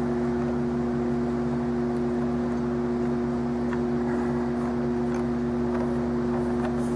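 Steady hum, like a machine or electrical hum, unchanging throughout, with a few faint light clicks.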